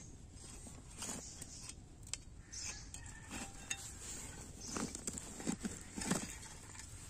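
Metal spade scraping and jabbing into dry soil and roots: a series of short, irregular gritty scrapes with light clinks, the loudest few near the end.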